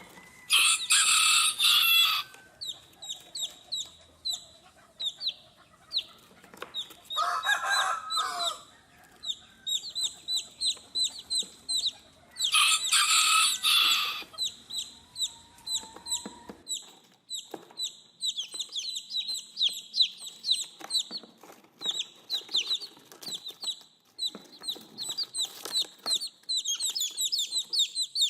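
Baby chicks peeping over and over, short high falling notes. Three times a louder, harsher sound over a second long cuts in, near the start, about seven seconds in and about thirteen seconds in.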